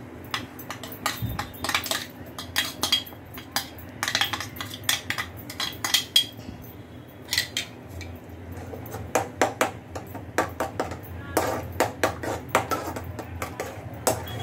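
A cooking utensil stirring crushed garlic and cumin in a pan of hot butter and oil, knocking and clinking against the pan many times at an uneven pace, with a short lull about halfway.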